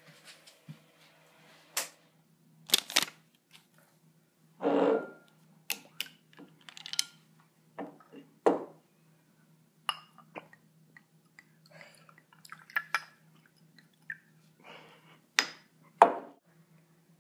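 Glass swing-top bottle and kitchen items being handled on a counter: a string of sharp clinks and knocks at irregular intervals, with a longer half-second sound about five seconds in.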